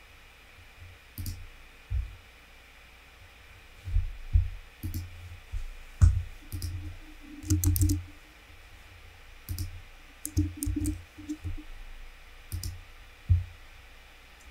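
Computer mouse clicks and keyboard keystrokes, scattered and irregular, some with a low thump.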